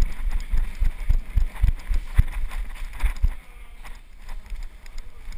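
Running footsteps on a concrete floor, carried as dull low thuds through the wearer's body into a head- or gun-mounted camera, about three a second. They stop a little after three seconds in.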